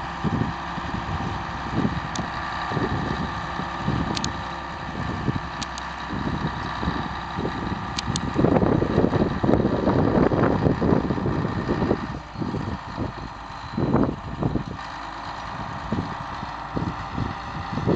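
Diesel crawler dozer running as it pushes a brush pile. It runs steadily and gets louder for a few seconds just past the middle.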